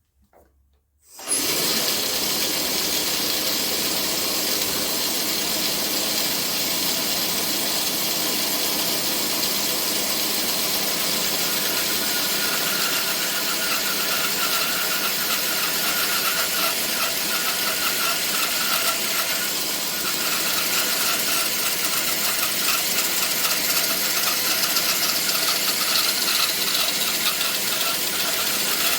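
ShopSmith band saw starting suddenly about a second in, then running steadily while resawing a walnut board, with a steady whine from the blade in the cut in the second half.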